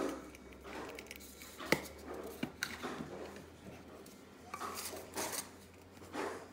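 Scattered light clinks and taps of kitchen utensils and dishes being handled, with a few short rustles, over a faint steady low hum.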